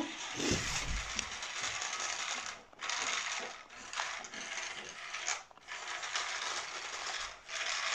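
Infrared remote-control toy helicopter (Fireman Sam Wallaby 2) running its small electric motor and plastic gears, a buzzy whirr that comes in spurts and cuts out briefly four times.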